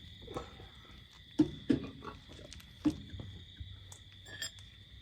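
Steady high trill of insects, with a few light knocks of metal work about one and a half seconds in and again near three seconds.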